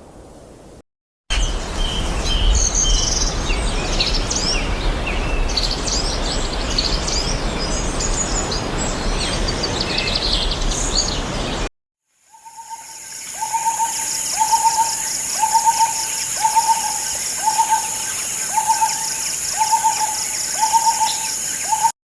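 Two nature ambiences one after the other. First, wind with a low rumble and many birds chirping. After a short cut, steady high insect buzzing with one bird's call repeated about once a second.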